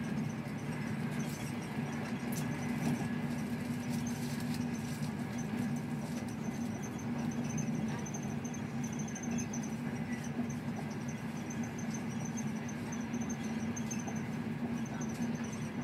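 Steady running noise of a passenger train heard from inside the carriage: a constant low hum with a faint, high-pitched chirping squeak running through it.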